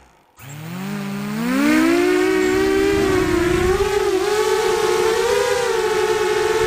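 FPV quadcopter's electric motors spinning up from rest about half a second in, the whine rising in pitch over the next two seconds as it lifts off, then holding a steady high whine that wavers with the throttle. Heard close up from the drone's own onboard camera.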